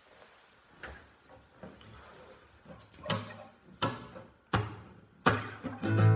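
Nylon-string classical guitar handled as it is picked up, with faint knocks and rustling, then single chords struck about three and four seconds in and again near the end, where steady playing begins.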